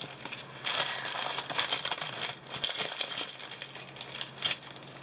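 Plastic packaging crinkling and rustling as items are handled and sorted by hand, densest in the first half and then in scattered bursts.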